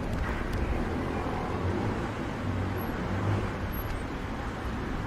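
Outdoor city street ambience: a steady low rumble of road traffic.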